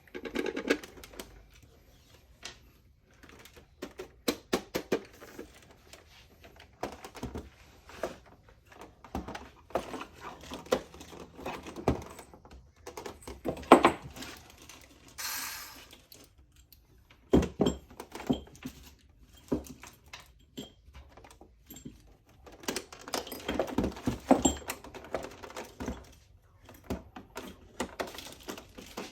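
Irregular clicks, knocks and clatters of a Sax-A-Boom's plastic casing and small screws being handled as the toy saxophone is taken apart, with a brief hiss about halfway through.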